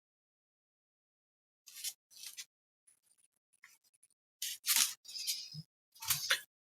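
A few short scratchy sounds from soldering work on a circuit board, growing louder toward the end.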